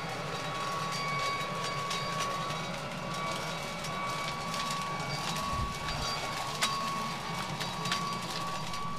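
Corded electric leaf blower running steadily at full speed with a high whine, over a rush of air and scattered sharp clicks of debris striking it; one click about two-thirds through stands out.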